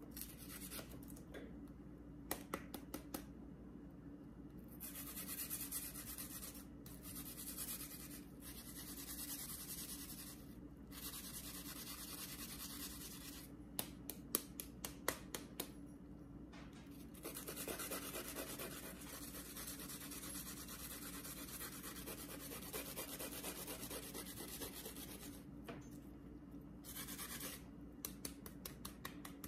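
Food-prep handling at a kitchen counter: stretches of scratching and rubbing, with short runs of sharp taps about two seconds in, around the middle and near the end.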